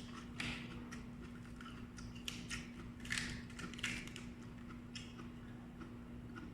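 A person chewing raw vegetables, lettuce and broccoli, with the mouth close to the microphone: a handful of short, soft crunches and mouth clicks spaced a second or so apart, over a faint steady hum.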